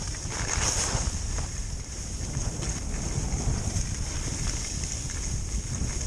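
Skis scraping and hissing over packed, tracked-out snow during a downhill run, with wind rumbling on the microphone. A louder scrape of the skis comes about half a second in.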